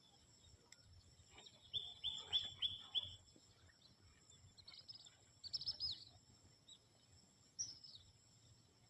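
Birds chirping in short quick runs, four notes about two seconds in and another cluster a few seconds later, over a steady high drone of insects.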